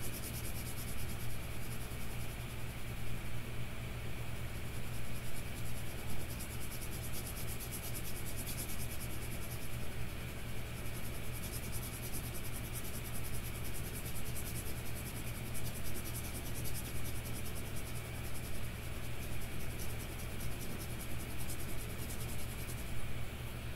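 Lamy Studio fountain pen with a medium nib scratching back and forth on paper as it hatches in an ink swatch, over a steady low hum.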